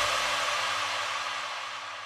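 The tail of an electronic music track fading out: an even hiss-like wash with a faint low hum under it, dying away steadily.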